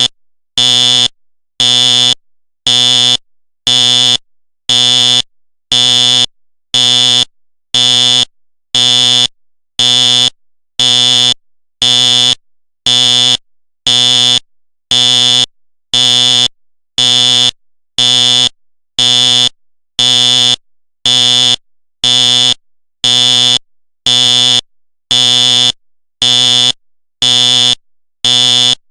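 Simplex fire alarm sounding on code pulse: a loud, buzzy tone switching on and off about once a second, in even, unchanging pulses.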